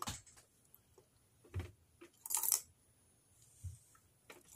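A keychain and small craft trinkets handled inside a glass jar: a few separate light clinks, soft knocks and rustles as the keychain is dropped in and pushed into place, the longest rustle about halfway through.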